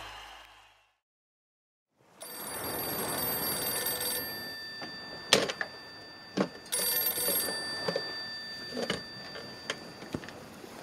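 The last notes of a country song fade out into a second of silence. Then a telephone bell rings twice over steady room noise, with a couple of sharp knocks between the rings.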